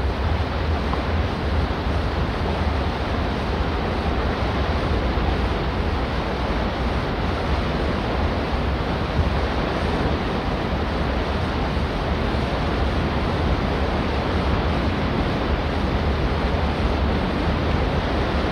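Cross-channel ferry departing port: a steady deep rumble with water wash over it, an even noise with no siren or distinct clatter.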